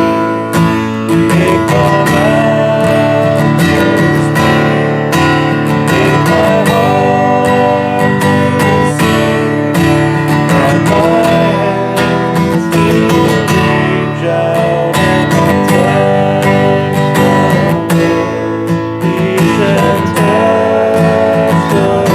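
Worship music led by a strummed acoustic guitar, played without words.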